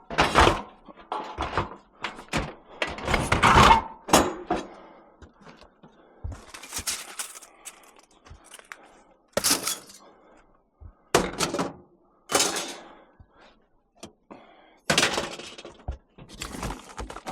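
Scrap metal and old appliances being shifted and dropped in the back of a van: a string of clanks, crashes and thuds, loudest about three to four seconds in.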